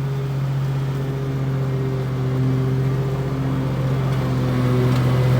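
Engine of an old Grasshopper riding mower running steadily at a constant speed while cutting grass.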